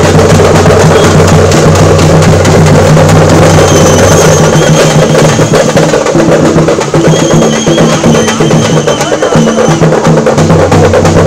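A procession drum troupe beating large strapped-on drums with sticks in a fast, continuous, loud rhythm. A high steady tone sounds twice over the drumming, about four seconds in and again about seven seconds in.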